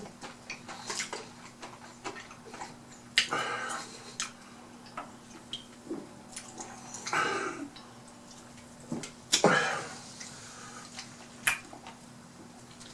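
A person eating fried fish close to the microphone: chewing and mouth noises with scattered clicks of food and dishes being handled, over a faint steady hum.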